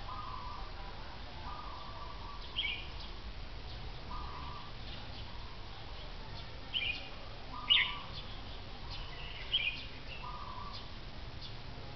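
Caged red-whiskered bulbuls giving short, sharp calls four times, the loudest about eight seconds in. Softer, lower notes repeat every second or two over a steady low hum.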